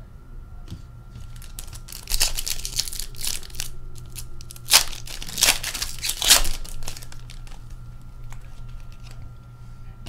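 Foil wrapper of a Synergy hockey card pack crinkling and tearing as it is ripped open by hand, in a run of rustling bursts from about two seconds in, loudest near the end of the run. A faint steady hum sits underneath.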